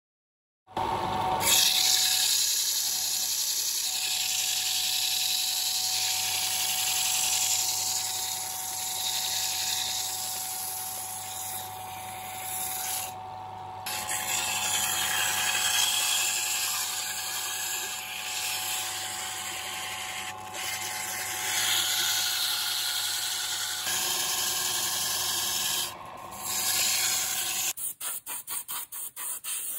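Wood lathe running with a steady motor hum while sandpaper is held against the spinning turned wooden vessel, giving a continuous rubbing hiss. Near the end the sound flutters rapidly for a couple of seconds.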